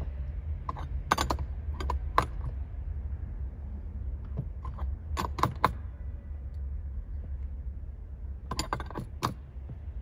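Metal clinks and clicks of an open-end wrench working a brass quick-connect air coupler tight into a compressor air tank. The clinks come in small clusters a few seconds apart, over a steady low hum.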